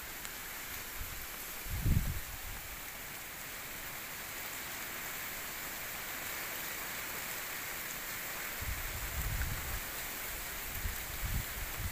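Steady, even outdoor hiss, with a short low rumble about two seconds in and more low rumbles near the end.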